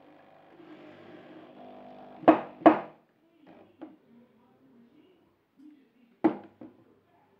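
Two sharp knocks on a wooden cabinet about half a second apart, then later a power drill set down on the cabinet top with a knock and a smaller clatter. Faint voices in the background at the start.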